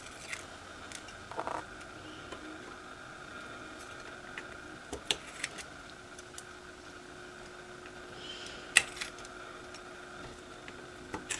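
Small scattered clicks and scrapes of a metal weeding hook and tweezers picking leftover bits of vinyl stencil off a painted wooden round, over a faint steady hum. One sharper tick stands out about three-quarters of the way through.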